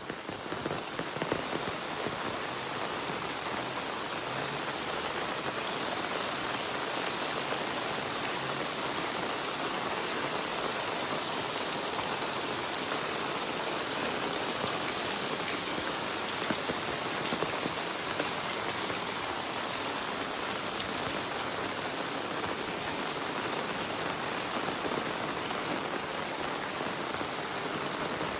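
Steady rain falling: an even, unbroken hiss of many small drop impacts, holding at one level throughout.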